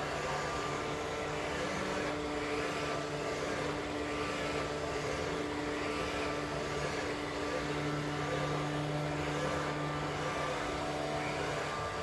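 Philips SmartPro Active robot vacuum cleaner running with its suction fan set to a higher power: a steady whir with a low hum underneath.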